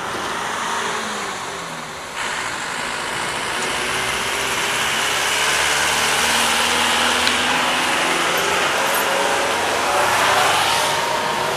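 Street traffic: engine and tyre noise of road vehicles passing close by, steady and fairly loud. It jumps up abruptly about two seconds in and swells once more near the end as a vehicle goes past.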